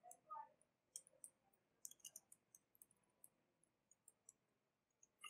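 Faint, scattered clicks of computer keyboard keys being typed, over near silence.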